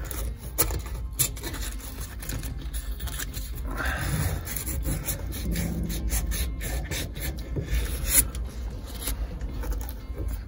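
Sandpaper rubbed by hand on a painted metal part of the gearbox shift linkage, taking off the paint so a pin will fit its hole. Uneven rubbing and scraping strokes with occasional sharp clicks.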